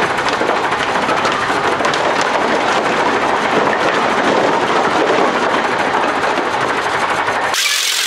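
Heavy diesel engine of a rescue crane working hard close by, a loud steady run with a dense rapid clatter. The sound changes abruptly near the end.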